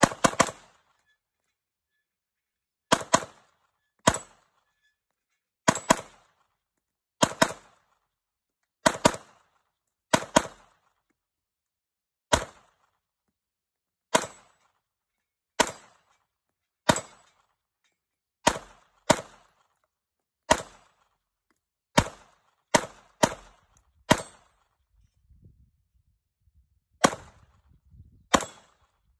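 Glock 19 Gen5 9 mm pistol fired in single shots, around twenty over the span, mostly one to two seconds apart with some quick pairs.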